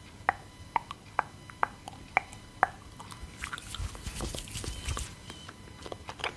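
Wet fingertip pats of hydrating toner being tapped in, sharp clicky taps at about two a second, followed from about halfway by a couple of seconds of denser crackly, rustling handling noise.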